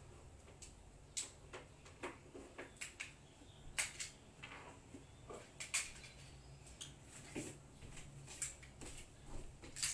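Irregular light clicks and knocks of small objects being handled by hand, a few of them sharper, over a steady low hum.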